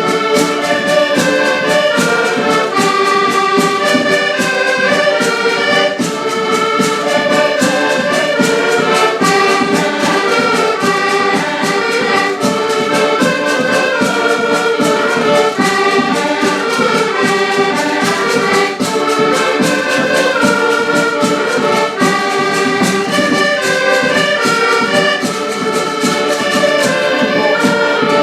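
A band playing a tune with a steady beat and several instruments holding melody lines together.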